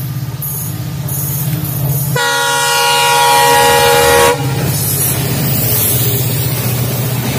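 WDP4D diesel locomotive approaching with its engine running, then sounding one long horn blast of about two seconds. It passes close, and the passenger coaches roll by with wheel and rail noise.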